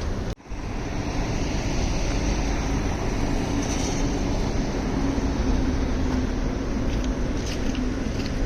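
A road vehicle in motion: a steady engine hum with road and wind noise. The sound drops out for a moment about half a second in.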